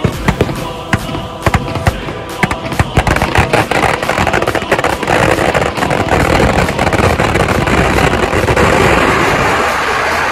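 Firecrackers packed inside a burning Ravan effigy going off: a quick string of sharp bangs that about four seconds in builds into a dense, continuous crackling barrage.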